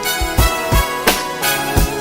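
Instrumental music with a steady beat and no singing.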